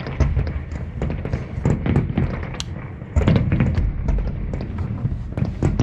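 Fireworks display going off: a dense run of crackling bangs over low booming, with a louder burst of booms about three seconds in.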